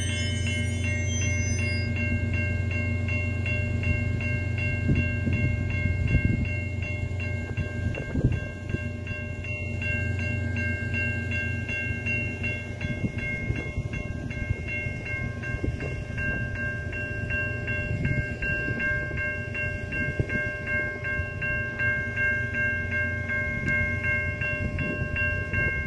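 Level-crossing warning bell ringing in a steady, even repeat over the low rumble of a VIA Rail Canadian's stainless-steel passenger cars rolling slowly through the crossing, with irregular knocks from the wheels and cars.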